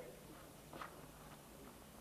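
Near silence: faint outdoor background of a five-a-side football game, with one brief faint knock just under a second in.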